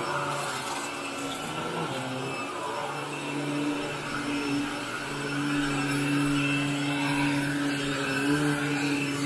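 Upright vacuum cleaner running steadily as it is pushed over carpet, pre-vacuuming to lift dry soil before cleaning. Its motor hum shifts slightly a couple of times with the strokes and gets a little louder in the second half.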